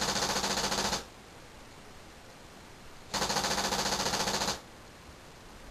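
Tippmann X7 paintball marker with an electronic E-grip, fired automatically by a laser tripwire: two bursts of rapid shots. One burst ends about a second in, and the next starts about three seconds in and runs for about a second and a half.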